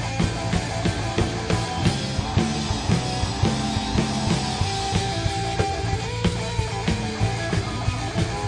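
Rock band playing a song: drum kit with regular hits, bass guitar and guitar.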